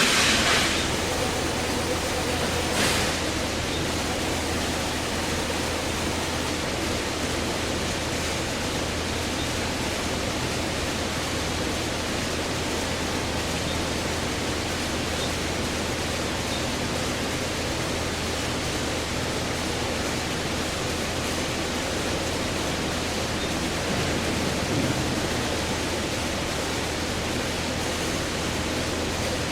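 Steady hiss with a low hum underneath, with two short louder hisses near the start.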